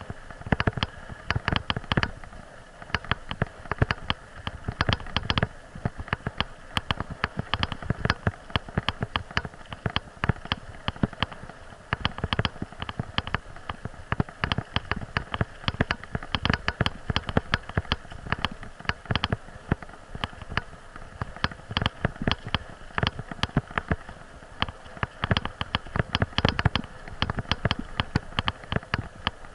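A bicycle and its mounted camera rattling over a rough, leaf-covered dirt forest track: a dense, irregular run of knocks and clicks with no break.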